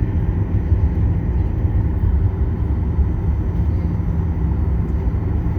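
Steady low rumble inside the cabin of a Boeing 737-900ER taxiing after landing, its CFM56-7B engines at idle, with a faint steady hum running through it.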